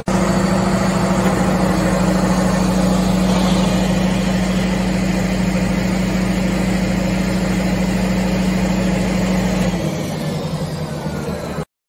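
Watercart's engine and water pump running steadily while the water cannon sprays a jet, a strong low drone under a broad rushing hiss. The drone stops about ten seconds in, and the sound cuts off abruptly just before the end.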